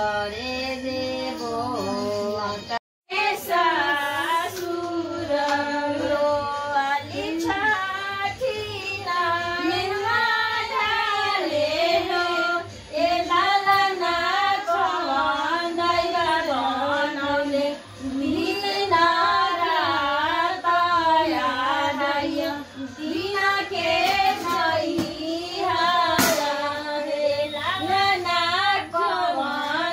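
A high female voice singing a Chhath devotional folk song (chhath geet) with a winding, ornamented melody. The singing follows a brief break about three seconds in.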